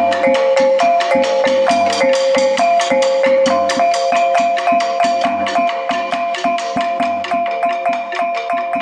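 Instrumental music: a fast, evenly struck pattern of mallet-like notes repeating a short melody over a steady beat.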